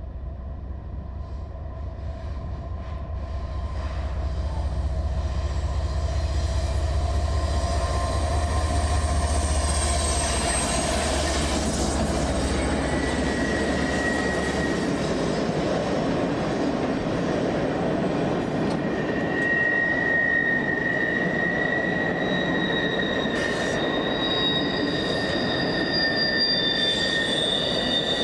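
Diesel-led train passing close by. It builds to a loud rumble over the first few seconds; the deep engine throb fades out about halfway through as the cars roll past with steady wheel noise. In the last third, high wheel squeal rings out over the rolling noise.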